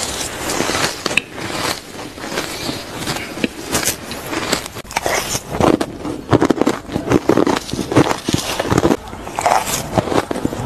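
Close-miked crunching and chewing of mouthfuls of shaved ice, a rapid, irregular run of crisp crunches that grows denser and louder about halfway through.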